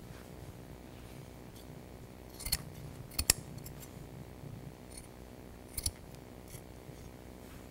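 Scissors snipping through jute carpet padding in a few short separate cuts, the loudest about three seconds in and another pair near six seconds: relief cuts so the padding lies down into the floor corners.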